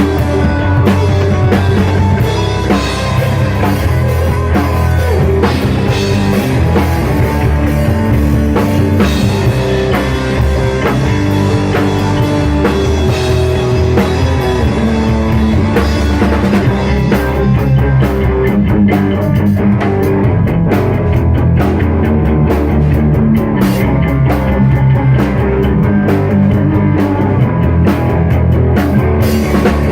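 Rock band playing: drum kit and guitar at a steady, loud level, with no singing picked out.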